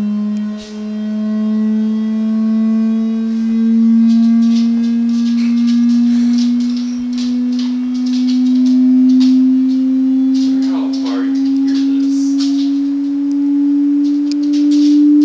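Hearing-test tone sweep played loud through a speaker: a steady electronic tone slowly rising in pitch, with its overtones. Over it, scattered light rattling and scratching and a short gliding whine about ten seconds in.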